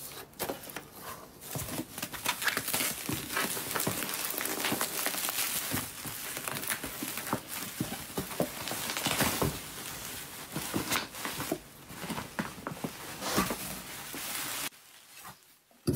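Bubble wrap and plastic packaging crinkling and rustling as hands dig through a cardboard box, full of small crackles. It dies down near the end.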